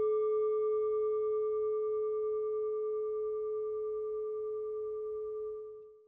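A singing bowl's single struck tone ringing on, one low steady note with fainter higher overtones, slowly dying away and fading out near the end.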